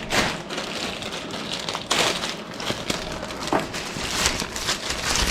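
Hand-handling noise: crinkling and scraping with scattered small clicks, with one stronger scrape about two seconds in, as parts around the hood latch are worked by hand.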